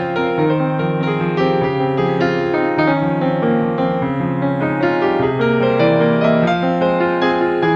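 Background music: a piano melody with sustained notes over a low bass line.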